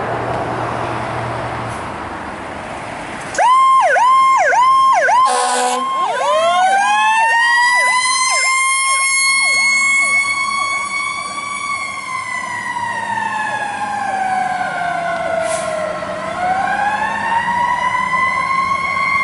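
Pierce Enforcer fire engine responding. For about three seconds only the truck's diesel rumble is heard. The siren then starts suddenly with a quick run of yelps and a short blast, followed by a long wail that climbs, falls slowly and climbs again.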